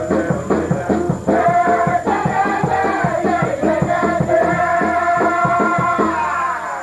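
Upbeat stage-musical number: band with a steady drum beat and singing. It closes on a long held final note that sags in pitch and fades near the end.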